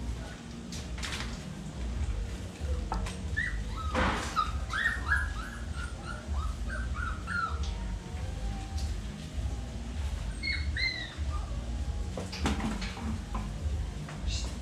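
Phu Quoc Ridgeback puppy whimpering: a quick run of short, falling whines, then two more a few seconds later, with a couple of sharp knocks and a steady low rumble underneath.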